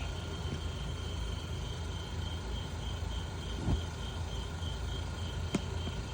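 Ammo-can propane fire pit burning with a steady low rumble, turned up high, while crickets chirp in a steady pulse. A dull knock comes about three and a half seconds in and a sharp click near the end.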